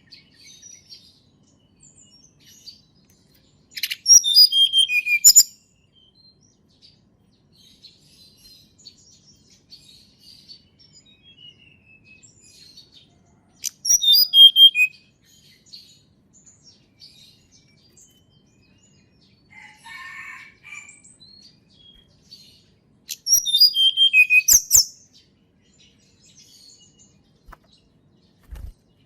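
A tledekan gunung songbird sings three loud, short phrases about ten seconds apart. Each is a quick run of bright notes falling from high to lower in pitch. Faint scattered chirps and a brief low chatter fill the gaps.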